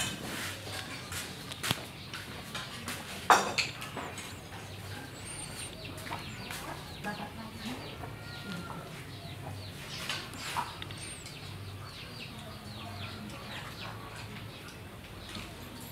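A few short, scattered animal calls and sharp clicks, the strongest about three seconds in, over a steady low hum.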